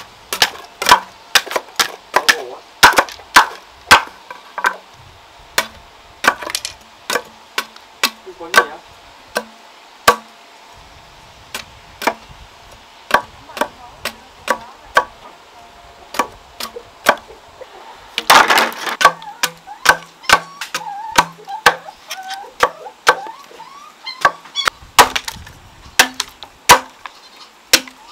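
Repeated chopping strikes on wood: sharp, irregular blows, roughly one or two a second, with a short noisy burst about eighteen seconds in.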